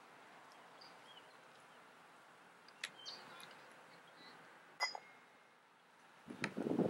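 Two sharp clicks of croquet balls being struck, about two seconds apart, the second with a brief ring. Faint bird chirps in the background, and a low rustling noise near the end.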